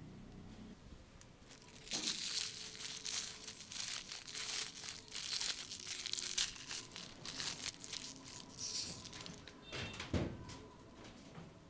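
Aluminium foil wrapping being crinkled and torn open by hand, a dense crackling from about two seconds in until about nine seconds. A single light knock follows near the ten-second mark.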